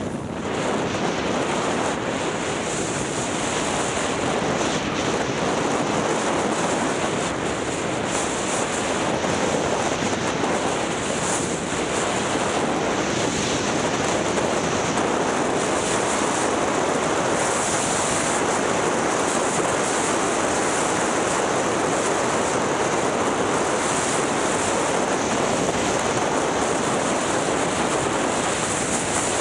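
Steady rushing noise of a downhill ski run: alpine skis sliding over the snow, with wind blowing over the microphone at speed.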